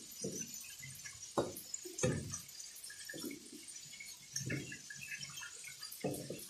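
Duck eggs being lowered by hand into a plastic jar of brine for salting: water sloshing and plopping, in about six separate splashes.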